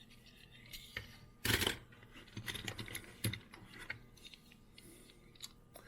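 Die-cast toy cars handled and picked out of a box: scattered light clicks, taps and rustling, the loudest a short rustle about a second and a half in.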